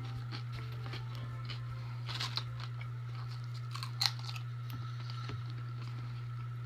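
A person chewing a mouthful of hamburger, with a crunch about two seconds in and a loud wet smack of a licked finger about four seconds in, over a steady low hum.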